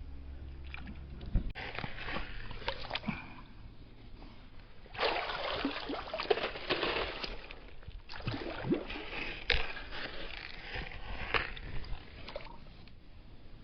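Creek water sloshing and splashing in three bursts, with scattered sharp clicks among them.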